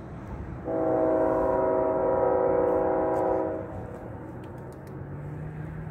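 Diesel locomotive air horn of an approaching BNSF coal train sounding one long chord of several steady notes, lasting about three seconds; a second blast starts right at the end.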